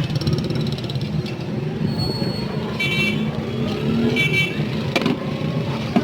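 Street traffic with a steady engine rumble, and two short high-pitched horn toots about a second apart in the middle.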